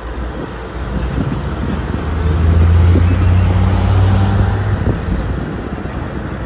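Bus engine running with road noise throughout. Its low, steady hum grows louder for about two seconds in the middle, then eases back.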